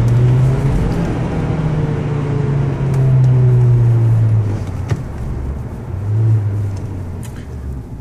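Honda Civic 1.8 i-VTEC four-cylinder engine and road noise heard inside the cabin as the car slows from high speed. The engine note sinks steadily, drops off about four and a half seconds in, briefly rises again around six seconds, then fades lower.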